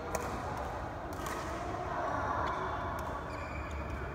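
Badminton racket smashing a shuttlecock with a sharp crack right at the start, then a few lighter knocks of shuttle and racket and short squeaks of court shoes on the sports floor.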